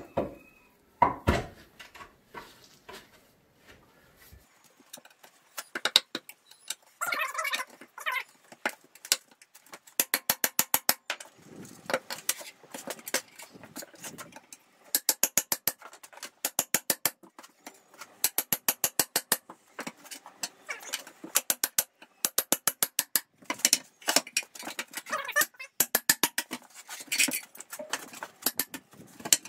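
Steel tyre levers clicking and scraping against a rusty steel wheel rim as an old tractor tyre's bead is levered off in small bites, with several quick runs of sharp clicks.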